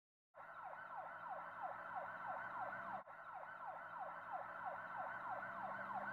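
Ambulance siren in a fast yelp: a falling whoop repeats about three times a second over a steady low hum. It cuts out for an instant about three seconds in.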